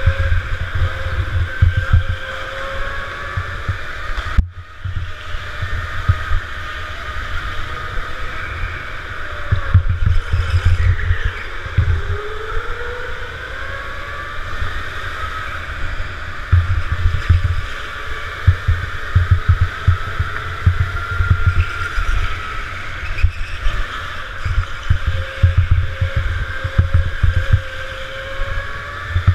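A racing go-kart lapping an indoor track, heard from on board: the kart's motor holds a pitched tone that glides up and down with speed through the corners, over a heavy low rumble. The sound briefly cuts out about four and a half seconds in.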